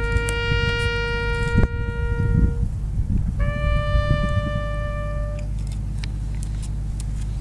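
A bugle sounding the end of a call: one long held note, a pause, then a second, higher long note, with no further notes after it. Wind buffets the microphone throughout, with a sharp knock about one and a half seconds in.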